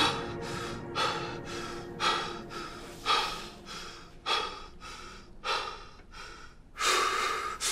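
Tense, heavy breathing: short breaths in and out, about one breath a second, the loudest near the end.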